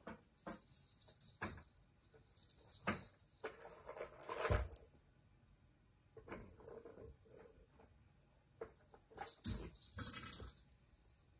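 Balls rattling and jingling around the tracks of a plastic three-tier tower-of-tracks cat toy as a cat bats at them. The sound comes in about five bursts with clicks, and the loudest ends in a knock about halfway through.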